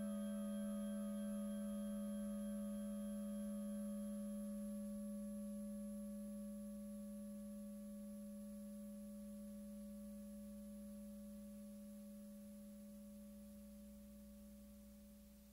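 A single sustained electronic tone from 1960s tape-studio electronic music: a low pitch with several fainter, higher overtones, fading slowly throughout. Some of the higher overtones drop out about four to five seconds in, and the tone dies away near the end.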